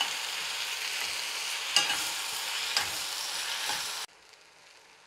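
Chopped onions and tomatoes sizzling in oil in a stainless steel pan, with a slotted metal spatula stirring and clicking against the pan a few times. The sound cuts off suddenly about four seconds in.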